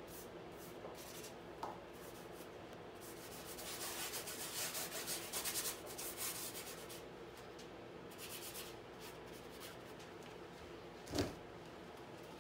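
Paintbrush scrubbing paint onto a canvas: a dry, scratchy rubbing in repeated strokes that grows louder through the middle, with a single sharp knock near the end.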